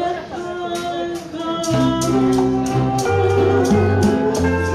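Live Hawaiian-style band music: a woman singing over steel guitar and guitar, with maracas shaking and hand-played conga drums keeping an even beat. Deep bass notes come in a little under two seconds in.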